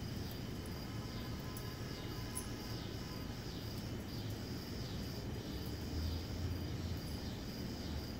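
Insects chirping steadily in a high-pitched, pulsing chorus, about two chirps a second, over a low steady rumble.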